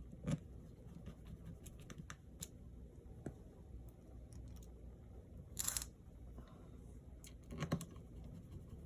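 Faint scattered clicks and light taps of a precision screwdriver and small parts as tiny screws are fitted into a MacBook Air's display hinge area, with a brief scrape about five and a half seconds in and another near the end.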